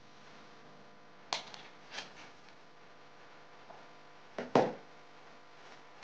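Small cardboard box of alcohol wipes being handled in the hands: two light clicks about a second and two seconds in, then a louder double knock about four and a half seconds in, over faint room tone.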